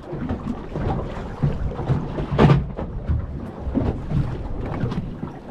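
Wind buffeting the microphone and water moving against a small boat's hull on a choppy sea, with one sharp knock about halfway through.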